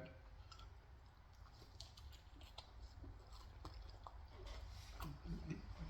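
Faint chewing and soft mouth clicks of someone eating pizza, with a few scattered small clicks.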